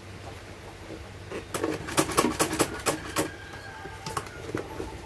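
Stiff faux-leather bag material being handled and folded at a sewing machine: a quick run of sharp crackles and clicks, then a few more near the end, over a steady low hum.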